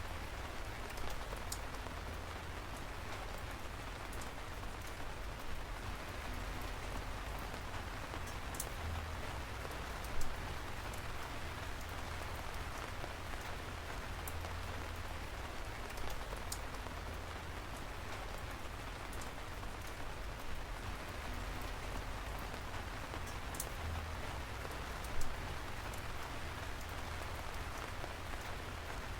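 Steady rain falling: an even hiss with scattered sharp drops ticking close by. Two louder ticks stand out, about a third of the way in and near the end.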